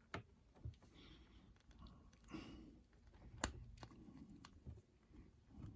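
Faint handling of a plastic action figure: a few small sharp clicks and light rubbing as a detachable hand is pushed back onto its wrist peg, the clearest click about three and a half seconds in.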